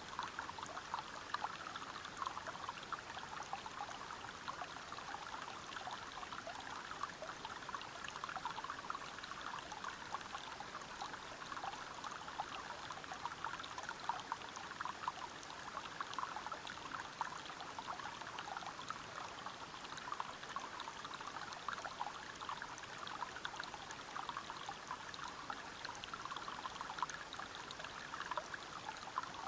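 River water flowing and splashing over rocks: a steady rush dotted with many small splashes.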